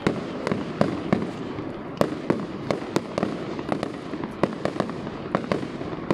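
Aerial fireworks bursting: an irregular run of sharp bangs, several a second, over a continuous noisy background.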